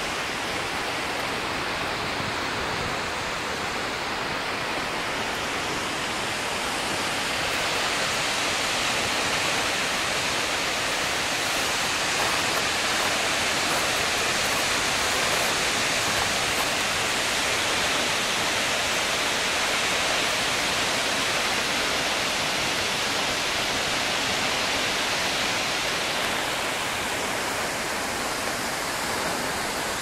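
Skógafoss waterfall's steady rushing roar of falling water. It grows a little louder and brighter from about eight seconds in and eases back near the end.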